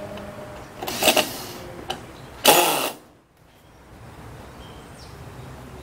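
Cordless drill driving wood screws into wooden corner braces, in two short bursts: one about a second in and a louder one about two and a half seconds in.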